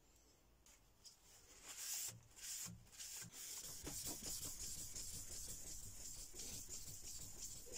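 Hand sanding a Damascus steel knife blade with P2000-grit sandpaper on a wooden block: quiet at first, then a faint hiss of back-and-forth strokes starting about two seconds in and settling into a steady, rapid rhythm.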